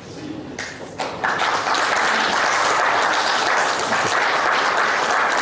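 Audience applause breaking out about a second in and then going on steadily.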